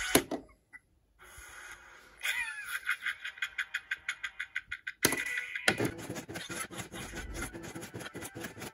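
Pachislot machine sounds: a sharp click as its PUSH button is pressed, then a rhythmic run of short electronic effect sounds. About five seconds in a loud knock comes as the start lever is struck, followed by rapid ticking while the reels spin.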